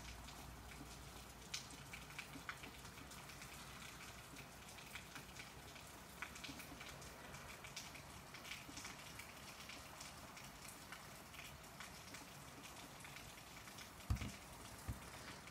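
Faint steady rain, with many individual drops ticking close by. Two short dull knocks come near the end.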